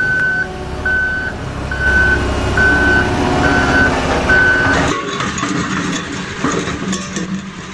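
Vehicle reversing beeper sounding six evenly spaced beeps, about one a second, over a low engine rumble; both stop about five seconds in.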